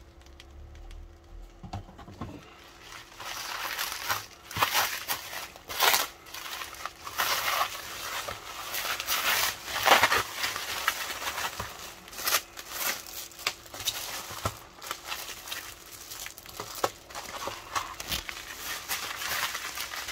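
Bubble wrap crinkling and rustling as it is handled and unwrapped by hand, in irregular bursts that begin a few seconds in and keep going.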